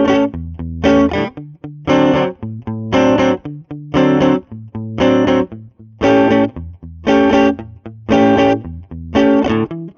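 Electric guitar (Squier Vintage Modified Jazzmaster) played through a Lovepedal Blackface Deluxe overdrive pedal set to low gain, for a lightly overdriven tone. Rhythmic strummed chords ring out about once a second, with lighter muted strokes in between.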